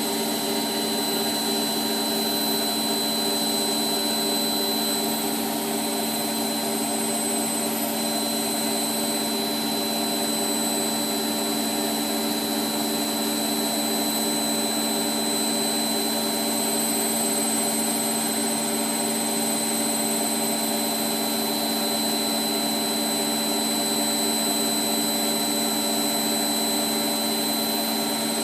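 Hotpoint Aquarius WMF720P washing machine spinning at speed: a steady motor hum and drum whir with a constant high-pitched whine, holding an even speed.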